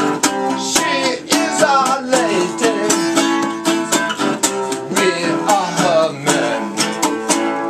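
Electric guitar strummed in a steady, even rhythm, chords ringing between strokes.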